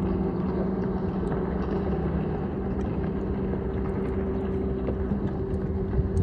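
Boat engine running at a steady, unchanging pitch, a low hum over a haze of wind and water noise.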